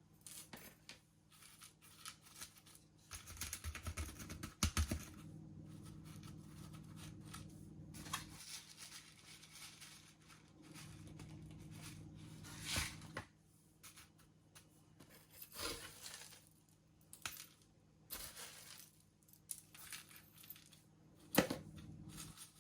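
Hands working gritty potting mix of perlite and pumice in and around a potted plant: scattered rustling and scraping with a few sharp clicks, over a steady low hum.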